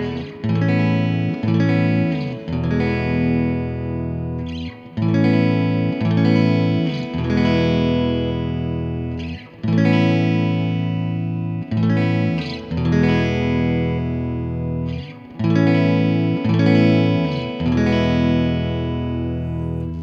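Electric guitar, a Telecaster-style solid body, strumming a chord progression through a Strymon Flint pedal's reverb, each chord left to ring out, with a new chord every couple of seconds.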